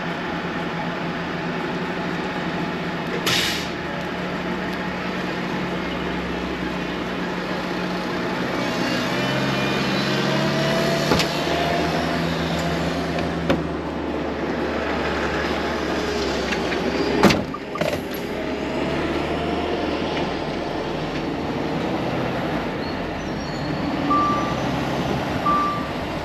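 Volvo FH 540 truck's diesel engine running at low speed, its pitch shifting around the middle. A short air hiss comes about three seconds in, and a sharp click and another air-brake hiss around seventeen seconds.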